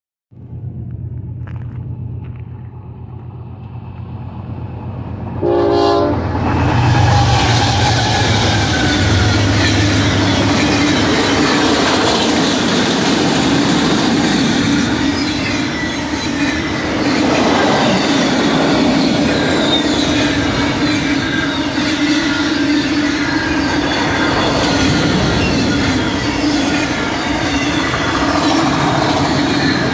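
Freight train led by BNSF ES44C4 diesel locomotives approaching with a low engine drone and sounding a short horn blast about six seconds in. Then a long string of autorack cars rolls past with steady, loud wheel-on-rail noise.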